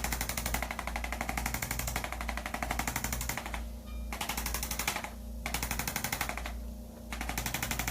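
Chiropractic adjusting instrument firing rapid, evenly spaced clicking taps while it loosens the paraspinal muscles. The taps come in runs of one to three seconds, broken by three short pauses.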